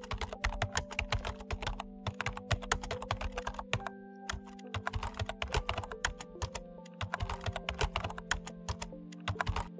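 Rapid keyboard typing clicks in bursts broken by brief pauses, stopping just before the end, over soft background music with held notes.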